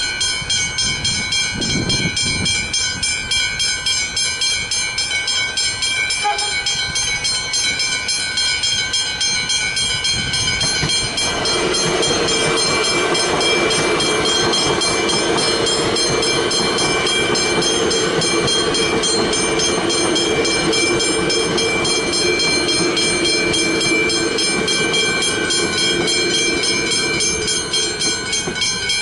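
Westinghouse Hybrid level-crossing bells ringing continuously in rapid, even strokes. About eleven seconds in, an electric suburban train passes through the crossing: its running noise and a steady hum join the bells and carry on almost to the end.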